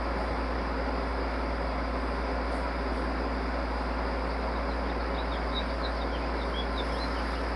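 Steady background hum and hiss at an even level, with a few faint high chirps from about five seconds in.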